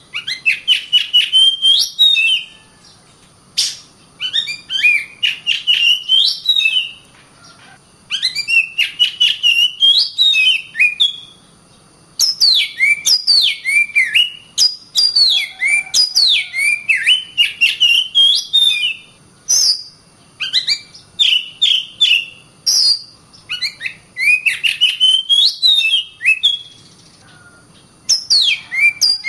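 Oriental magpie-robin (kacer) singing: phrases of quick, sweeping whistles and sharp notes, each lasting two or three seconds, repeated over and over with short pauses between.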